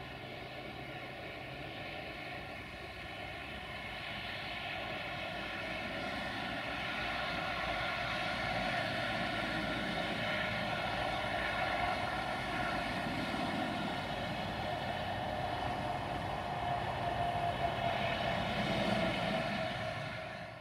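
Passenger train running away along the track, with a steady whine of several tones over a low rumble. The sound grows louder over the first several seconds, holds, then stops abruptly at the end.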